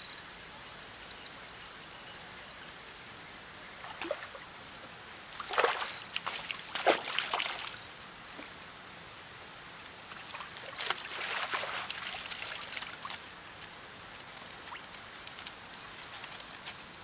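A hooked trout thrashing and splashing at the water's surface in two bouts, the second as it is scooped into the landing net.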